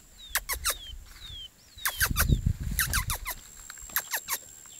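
Curió (chestnut-bellied seed finch) giving sharp, quick, downward-sweeping chip calls in clusters of two or three, with a few short falling whistles between them. A low rumble of wind or handling noise comes in about two seconds in.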